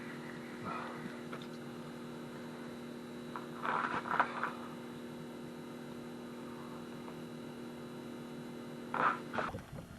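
A steady electrical-sounding hum made of two low tones, with a few short noises about a second in, around four seconds in and near the end.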